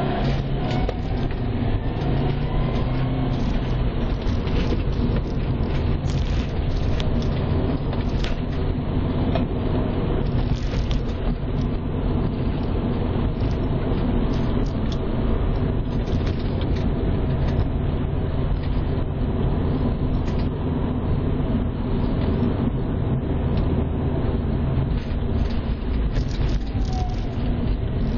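A 2011 Subaru WRX's turbocharged flat-four engine running steadily under load, heard from inside the cabin along with tyre and road noise.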